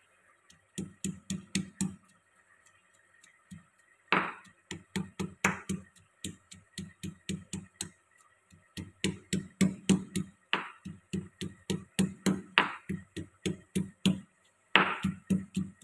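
A marble pestle pounding in a marble mortar, rapid stone-on-stone knocks at about five a second. The strikes come in runs broken by brief pauses, with a few harder blows standing out.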